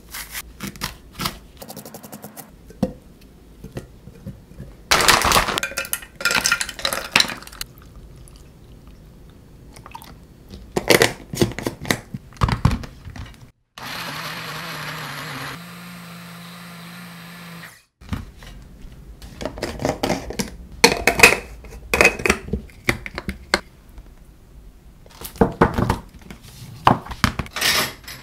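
Wizwell mini countertop blender running for about four seconds, blending banana and blueberries into a smoothie; its tone shifts once partway through. Before and after it come kitchen handling clatter and knocks.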